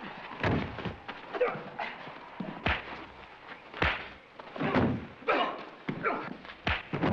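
Fistfight: a run of sharp punch thuds, about one a second, with men grunting between the blows.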